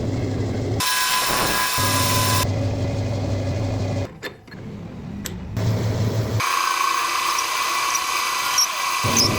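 Metal lathe running and machining metal, heard in abruptly cut segments: a steady low motor hum alternates with a harsher, high-pitched cutting hiss and whine. A few sharp clicks come in a quieter stretch about four to five seconds in.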